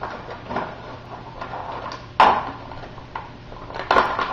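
Crinkling and crackling of thin plastic packaging handled by hands, in irregular bursts with a sharp crackle about two seconds in and a cluster near the end. A faint steady electrical hum runs underneath.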